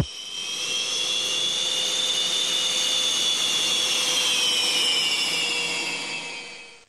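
Su-27SMK's twin AL-31F turbofans running at low power on the ground: a steady high-pitched turbine whine over a rushing hiss. The whine sags slightly in pitch in the last few seconds and fades out at the end.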